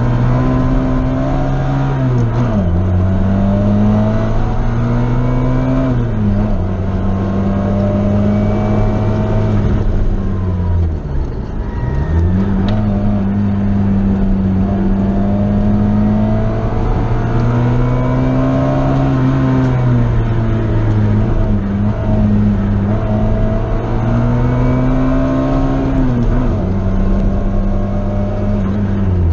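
A car's engine heard from inside the car as it is driven hard round a track: the revs climb under acceleration and drop sharply at each gear change, with a deeper fall and climb back about ten to twelve seconds in as it slows for a bend and pulls away again.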